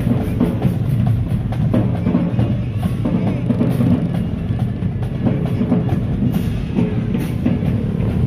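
Marching band drumline playing a drum cadence, with heavy bass drums and rapid strokes throughout.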